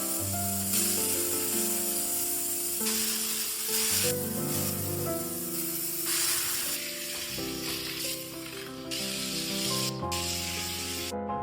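Hiss of a lightweight handheld steam cleaner jetting steam, swelling and easing several times, under background music.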